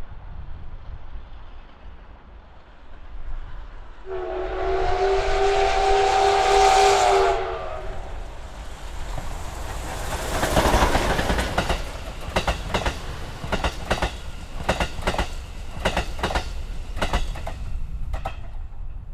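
D51 steam locomotive's whistle sounding one sustained multi-tone blast of about three seconds. The train then passes with a loud rush, followed by a regular clatter of wheels over rail joints, about two beats a second.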